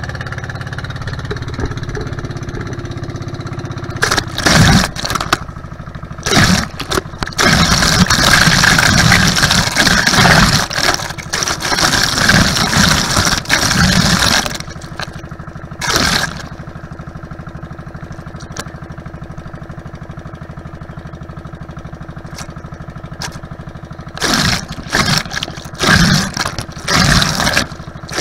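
Outrigger boat's engine running steadily, overlaid by loud bursts of rushing, splashing water as the microphone dips into the sea beside the hull. There is a long stretch of splashing in the first half, a short burst in the middle and several more near the end.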